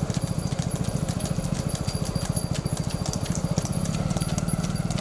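Several motorcycles running slowly at low revs, a fast, steady engine pulse, with a bullock's hooves clopping on the paved road.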